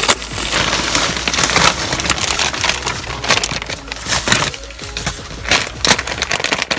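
Amazon package being pulled and squeezed open by hand, its packaging rustling and crackling in a dense, irregular run of short, sharp noises. It is hard to open without scissors.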